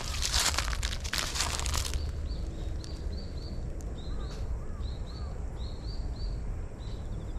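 Dry fallen leaves rustling and crunching for about two seconds as the cat steps over them, then small birds chirping in many short high notes, over a steady low rumble.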